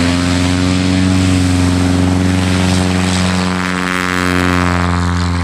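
Piper Super Cub's piston engine and propeller running loud and steady.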